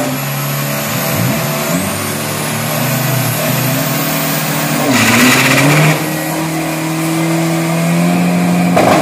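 Drag-racing pickup trucks' engines held at steady revs on the start line, the pitch stepping up and down, with a high whistle rising a couple of seconds in and a loud hiss about five seconds in. A louder burst of engine noise comes at the very end as they launch.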